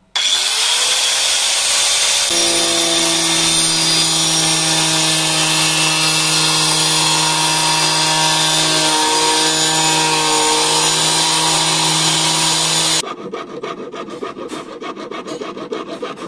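Handheld power cutting machine starts with a rising whine and cuts through the plastic of a fish box with a loud, steady grinding whine for about eleven seconds, then cuts off suddenly. Rapid rasping strokes follow near the end.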